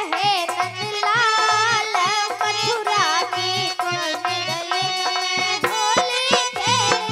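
Indian Holi folk-devotional song music: a hand drum plays quick strokes under a melody line that bends and slides in pitch.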